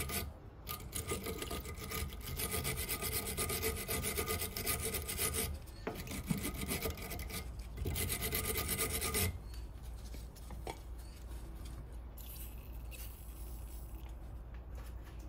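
A hand wire brush scrubbing rust and grime off the lower end of a Mercedes W203 anti-roll bar link in rapid strokes, cleaning the corroded nut and threads before they are undone. The scrubbing breaks off briefly near six seconds and stops about nine seconds in.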